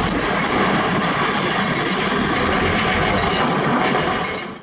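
A loaded Mitsubishi Fuso dump truck's diesel engine running as the truck drives on a gravel haul road, with steady tyre and machinery noise. It fades out near the end.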